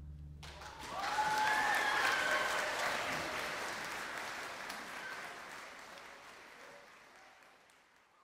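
A string orchestra's final held chord stops about half a second in, and audience applause breaks out at once, with a few cheers about a second in. The clapping then slowly fades away.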